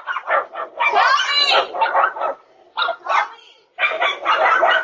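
Dog barking excitedly in repeated bursts, with a brief lull in the middle.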